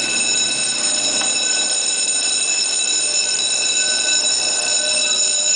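Building fire alarm sounding a steady, unbroken high-pitched tone.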